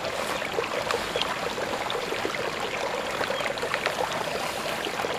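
Mountain spring water running out of the hillside in a small stream, a steady trickle.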